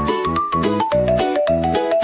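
Upbeat background music: a bouncy melody of short pitched notes over a steady bass beat.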